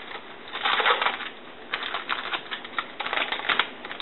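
Trading cards being flipped through by hand, the stiff cards sliding and flicking against each other in three short bursts of rustling.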